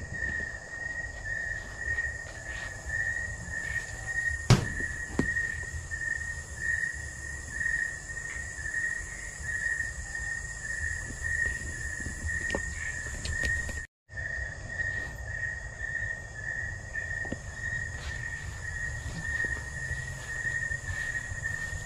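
Insects chirping steadily at one high pitch in a pulsing trill, with a fainter higher hiss of insects above it and low rumble from the handheld camera. A single sharp click comes about four and a half seconds in, and the sound cuts out for a split second near fourteen seconds.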